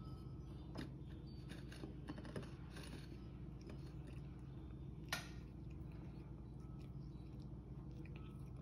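Quiet room hum with a few faint scattered clicks, one sharper tick about five seconds in.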